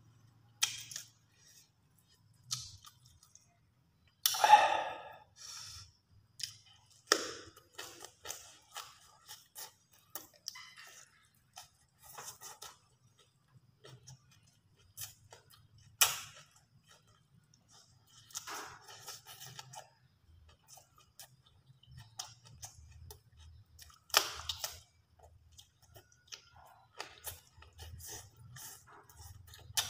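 Close-up eating sounds: a person chewing and crunching grilled fish and rice with the mouth near the microphone, in irregular wet clicks and smacks, the loudest about four seconds in.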